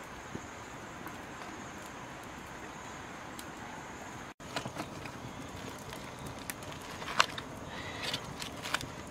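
Light knocks and taps as pieces of cut banana stem are dropped into a black cooking pot, scattered through the second half with one sharper knock near the end, over a steady outdoor background hiss.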